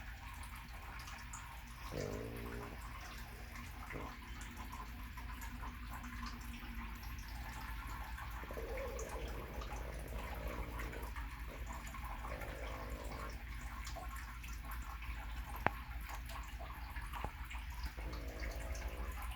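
Snoring: a handful of drawn-out snores, each a second or so long and several seconds apart, over a low steady hum. A single sharp click comes about two-thirds of the way through.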